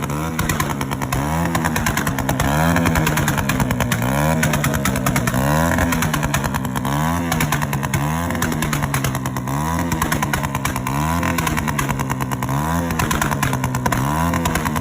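Honda CD 70's single-cylinder four-stroke engine revved in repeated quick throttle blips, about one every one and a half seconds, with the exhaust crackling and popping as it backfires.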